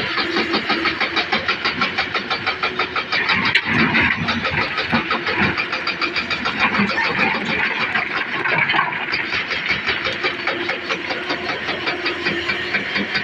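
Komatsu excavator's diesel engine running hard, with a loud, fast and even pulsing clatter.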